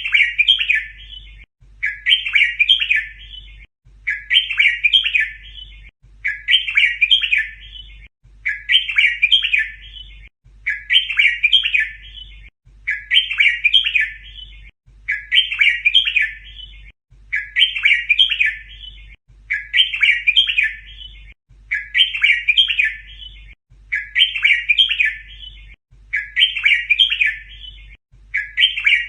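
Red-whiskered bulbul song: the same short, chattering, doubled phrase repeats about every two seconds, a training recording for teaching young bulbuls to sing.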